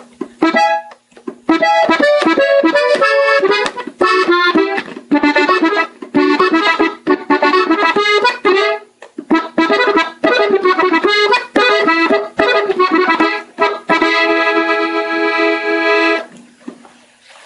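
Gabbanelli button accordion playing an ornamental run of many short notes, ending on a chord held for about two seconds before it stops near the end.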